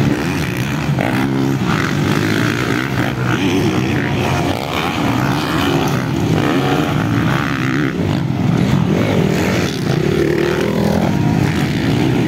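Several motocross dirt bikes racing, their engines revving up and down and overlapping one another.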